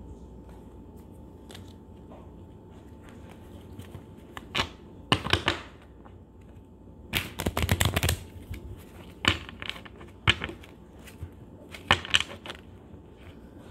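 A deck of playing cards being shuffled by hand: a run of quick flicking clicks lasting about a second, about seven seconds in, with shorter clusters of clicks and taps before and after as the packets are cut and squared.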